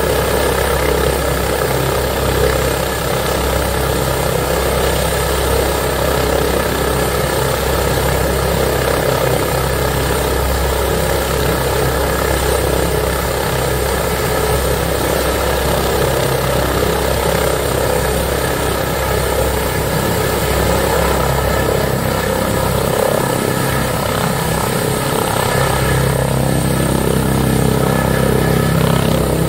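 Airbus H145 D3 five-blade helicopter's twin turboshaft engines and rotors running steadily on the ground, ready for takeoff. About 26 seconds in, the sound grows fuller and a little louder as the helicopter begins to lift off.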